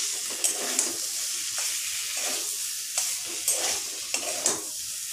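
Metal spatula stirring boiled potatoes and spice paste in a steel kadai, scraping and knocking against the pan several times over a steady frying sizzle.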